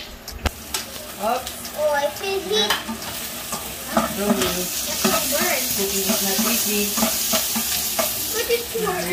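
Chopped vegetables sizzling in oil in a non-stick wok, the sizzle building about three seconds in as they are stirred, with knocks and scrapes of a metal ladle against the pan.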